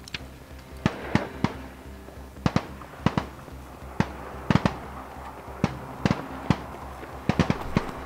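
Springfield XDS 9mm pistol firing about fifteen shots at uneven spacing, some in quick pairs, with a fast string of four near the end.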